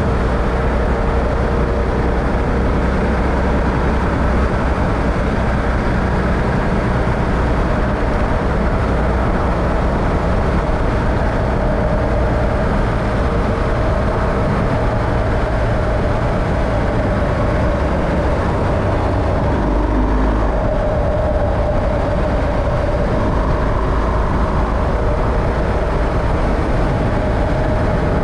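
A vehicle driving steadily: even, continuous engine and road noise with a faint steady hum.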